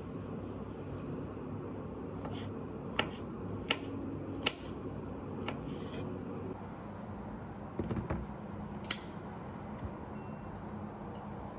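Knife slicing through brown mushrooms, the blade tapping crisply on a wooden cutting board every second or so. Near the end a louder click as an electric kettle is switched on.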